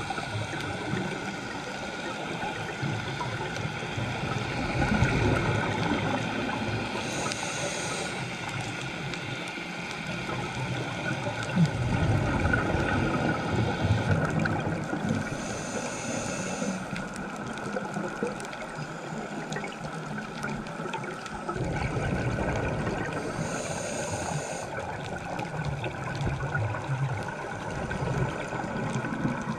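Underwater sound through a diving camera's housing: a scuba diver's regulator breathing, with exhaled bubbles rumbling and gurgling past every several seconds over a steady hiss.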